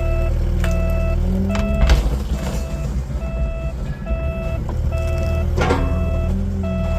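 An excavator's travel alarm beeps steadily, a little more than once a second, over its diesel engine running. A loud knock comes about two seconds in and another near six seconds.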